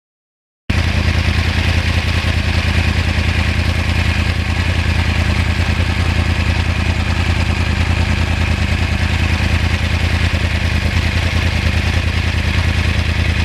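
A 2009 Yamaha R1's crossplane inline-four engine running steadily at idle, with a deep, even pulsing exhaust note. It starts abruptly about a second in and holds without revving.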